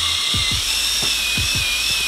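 Handheld electric polisher with a foam pad running steadily against car paint, a high motor whine whose pitch sags slightly as it is pressed into the panel, buffing out a scratch in the clear coat.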